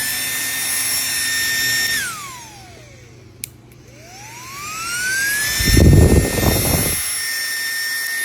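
Small electric cooling fan of a YCS UV repair fan running with a steady high whine, then switched off about two seconds in and winding down in a falling whine, a switch click, then switched back on and spinning up in a rising whine to full speed. A loud low rumble sounds for about a second after it reaches speed.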